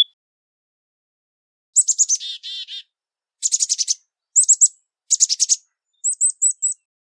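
Chickadee calling. About two seconds in comes a chick-a-dee-dee call: a few high notes followed by several buzzy dee notes. Three quick bursts of high, rapid notes follow, and near the end four short, high, down-slurred notes.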